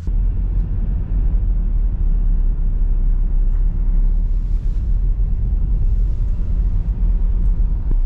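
Steady low rumble of road and engine noise heard inside the cab of a moving van.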